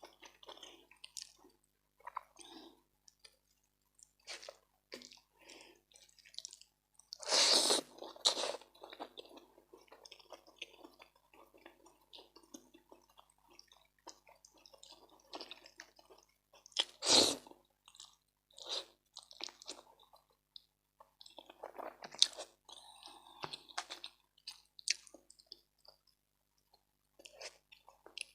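Close-miked eating sounds: a person chewing a mouthful of rice and food with soft, irregular lip smacks and mouth clicks, with two louder brief noises about seven and seventeen seconds in.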